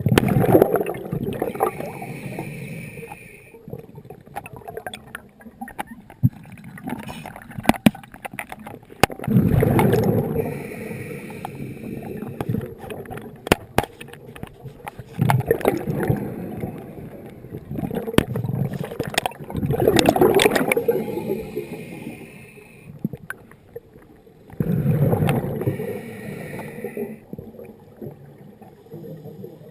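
Scuba diver breathing through a regulator underwater: about five rumbling bursts of exhaled bubbles a few seconds apart, with a steadier hiss of the regulator between some of them.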